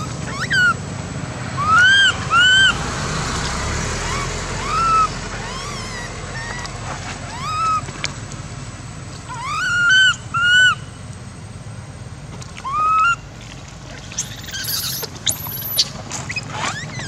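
Infant long-tailed macaque crying: short, arched, high-pitched whimpering calls, some single and some in quick pairs or threes, over a steady low background rumble.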